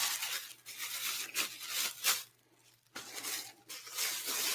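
Paper and cardboard rustling and scraping in irregular strokes as a mailed package is opened and the folded posters inside are handled.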